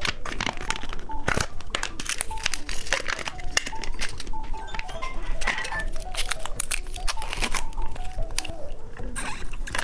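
Plastic candy packaging crinkling and rustling in many quick, irregular crackles while the candy is handled, over light background music.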